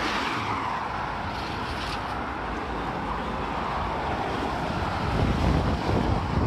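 Road traffic: a car passes with tyre and engine noise that falls in pitch as it goes by in the first second, then a steady traffic hiss. About five seconds in, a low rumble grows louder, from wind on the microphone or another approaching vehicle.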